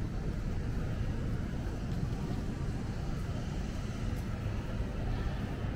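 Steady city street ambience: a low, even rumble of traffic and urban noise with no distinct event standing out.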